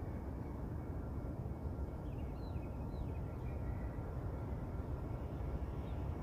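Steady low outdoor rumble, with a few faint high chirps a couple of seconds in.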